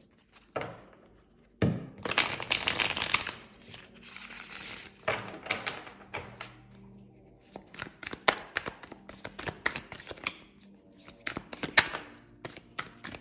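A deck of tarot cards being shuffled by hand. There are two longer rushes of sliding cards in the first five seconds, then a quicker run of light clicks and taps as the cards are handled.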